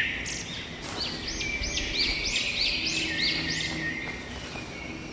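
A bird singing a run of about seven quick repeated notes, each rising and falling, roughly three a second, over faint steady outdoor background noise.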